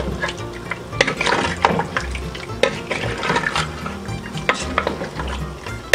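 A wooden spatula stirring chunks of beef and beef skin in their braising liquid in an aluminium pot, with irregular scrapes and knocks against the pot's sides and bottom over a wet, sizzling hiss.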